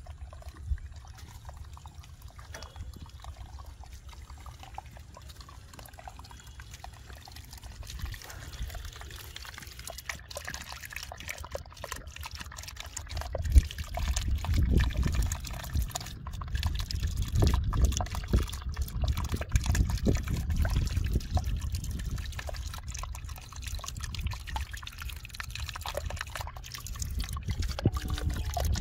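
Muddy water in a shallow rainwater runnel splashing and trickling as a hand stirs it among stones, louder from about halfway through.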